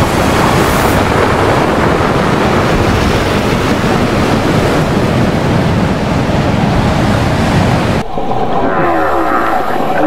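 Steady, loud rush of ocean surf and wind for about eight seconds. It cuts off abruptly, and whale calls follow: low moans gliding downward in pitch.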